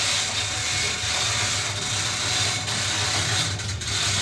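Manual chain-block hoists clicking and their chains rattling as a ship main-engine crankshaft is lifted, over a steady machinery drone with a low hum.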